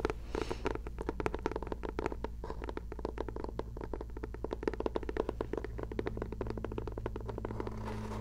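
Fingernails tapping quickly and continuously on the hardcover of a journal, a close-miked run of crisp taps, many a second.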